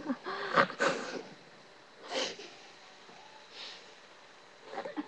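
A girl's short, breathy wheezes and sniffs close to the microphone: several in the first second, another about two seconds in, and fainter ones later.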